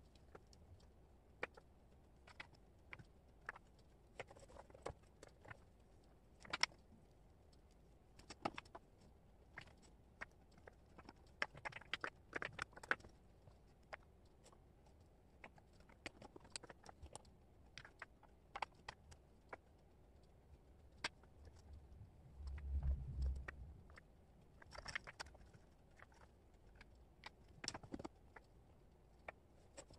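Wooden jigsaw puzzle pieces clicking and tapping as they are picked up, sorted and set down on a cork board, in faint, irregular clicks. A brief low rumble comes about three-quarters of the way through.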